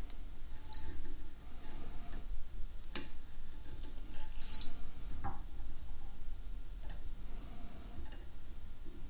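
Light handling sounds of thread being worked into a whipping knot on a lure held in a fly-tying vise: a sharp click about three seconds in, a few soft knocks, and two short, high squeaks, one about a second in and one just before the halfway point.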